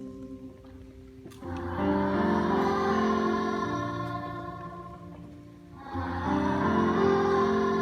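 A chorus singing held chords that swell in loudness about a second and a half in and again about six seconds in.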